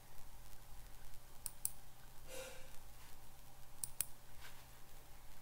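Computer mouse button clicking: two pairs of sharp clicks, each pair a fraction of a second apart, about one and a half and about four seconds in, over a faint steady electrical hum.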